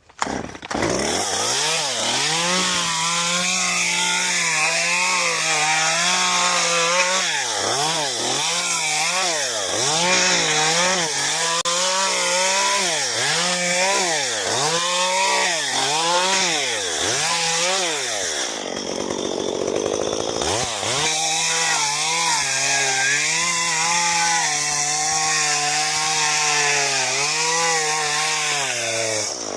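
Chainsaw cutting into a Bismarck palm trunk, its engine speed rising and falling over and over as it bites and eases. About two-thirds through, the engine tone drops away for a couple of seconds. It then runs at a steadier pitch until it stops near the end.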